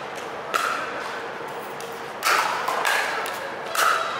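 Pickleball rally: a paddle striking the hollow plastic ball three times, sharp pocks about a second and a half apart, each with a short ring.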